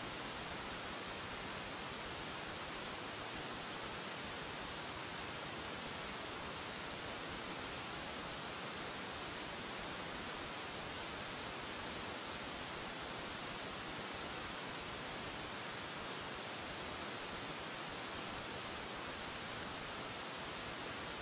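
Steady, even static hiss with nothing else heard in it.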